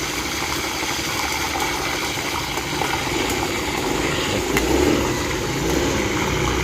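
Curry leaves frying in a pan of hot oil, a steady sizzle with a few sharp crackles.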